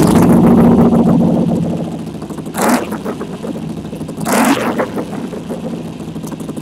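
Harley-Davidson Sportster 883's air-cooled V-twin, fitted with a Supertrapp SuperMeg 2-into-1 exhaust, firing up off the starter and running. It is blipped twice, about two and a half and four and a half seconds in, then settles to idle with a good, deep tone.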